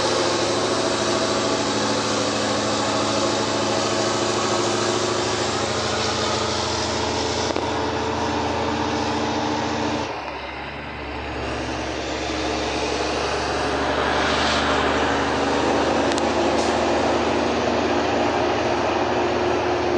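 Heavy truck's diesel engine pulling steadily uphill under the load of a full double tanker of diesel, heard from inside the cab. About halfway through the engine sound dips briefly and then comes back at a different pitch.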